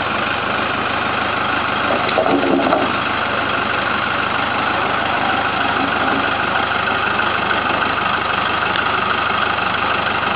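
Farm tractor's engine running steadily while its front loader tips off a load of wooden poles. A short louder burst about two seconds in, as the poles slide off the loader onto the ground.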